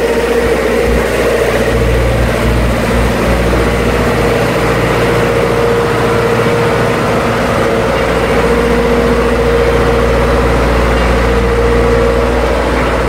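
Stainless-steel passenger coaches rolling past behind a steam locomotive: a steady low rumble of wheels on rail, with a steady ringing tone held over it.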